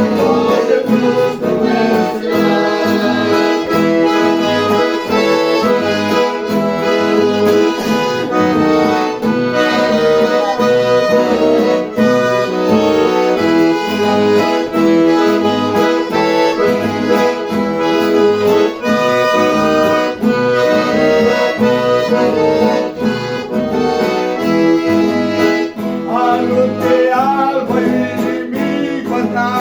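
Accordion (gaita) playing a gospel praise tune instrumentally: sustained chords and melody over short, pulsing bass notes.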